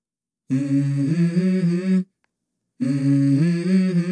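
A hummed vocal melody in edited-in intro music, heard as two phrases of about a second and a half each with a silent gap between them. The tune steps up and down.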